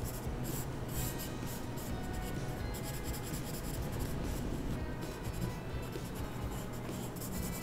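Pencil sketching on sketchbook paper: quick, irregular scratchy strokes, with faint music underneath.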